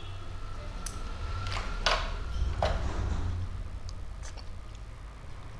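Scissors snipping open a plastic jelly-candy tube: four sharp snips and crinkles in the first three seconds, then a few fainter clicks.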